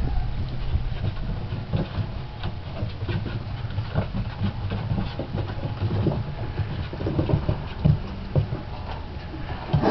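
4½-week-old Alaskan Malamute puppies padding and scrabbling about on a plywood floor, their paws and claws making quick, irregular clicks and taps.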